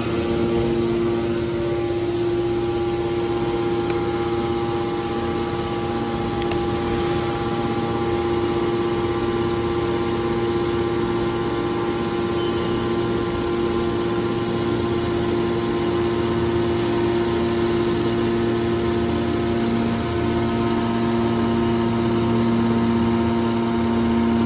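Industrial machinery running steadily, a constant hum made of several held tones over a low machine noise.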